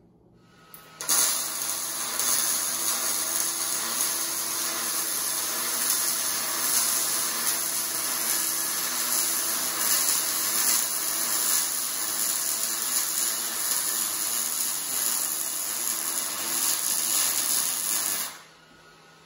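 Electric arc welding on steel square tubing: one continuous weld bead with a steady hiss of the arc. It starts suddenly about a second in and cuts off shortly before the end.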